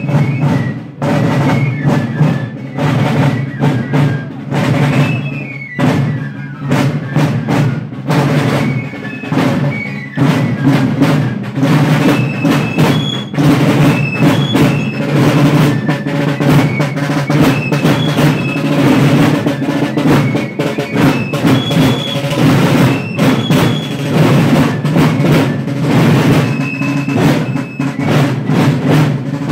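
A fife and drum band playing a march: continuous drumming and drum rolls under a high fife melody that steps up and down.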